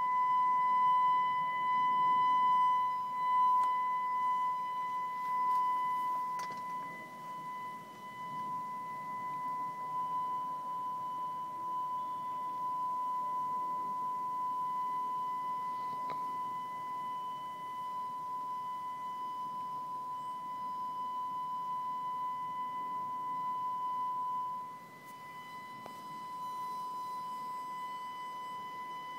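ATI electronic tornado siren sounding its steady 1000 Hz test tone. It starts abruptly and holds one unchanging pitch, dipping in loudness about 24 seconds in.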